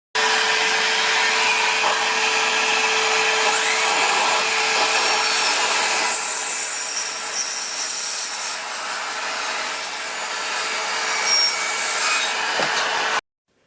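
Evolution 18V cordless saw cutting through wood, with a workshop vacuum hooked up to it for dust extraction. The steady running sound changes about six seconds in and stops abruptly near the end.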